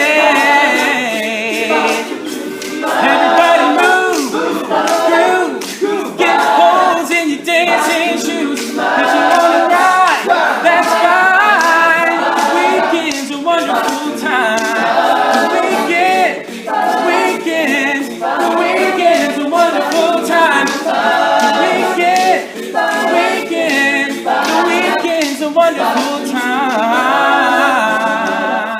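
All-male a cappella group singing an upbeat pop song in close harmony, a lead voice over backing vocals, with a sharp rhythmic beat running under the voices.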